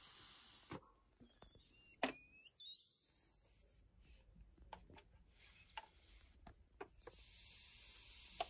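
Faint handling of thick clear adhesive tape and a plastic drinking straw: scattered small clicks and crinkles, with one sharper squeaky crackle that slides in pitch about two seconds in. A soft steady hiss comes in near the end.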